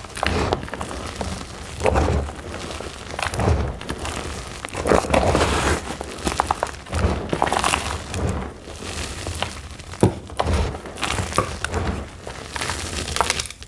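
Reformed gym chalk blocks being crushed, crunching and crumbling in a series of irregular, crackly bursts; the blocks are extra crunchy and hard.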